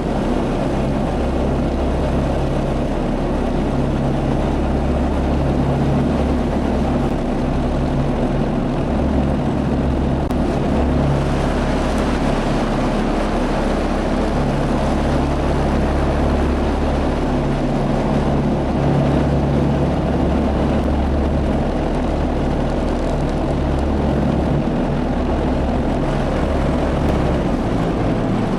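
Heavy farm machine's engine running steadily under load, a continuous low drone that swells and eases a little without stopping.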